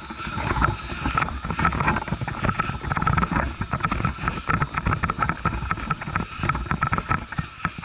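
A head-mounted action camera jostled by the wearer's movement, with rapid, irregular rustling and knocks and a low wind rumble on the microphone, as the wearer moves from the mound back to home plate on a dirt infield.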